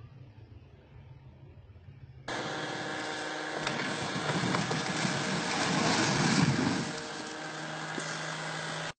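After a faint low hum, a sudden cut to engine noise with a rushing sound. It swells to a peak about six seconds in, eases off, then stops abruptly.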